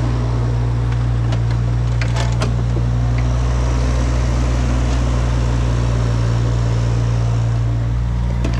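Heavy machine engine running steadily at a constant speed, with a few light clicks about two seconds in.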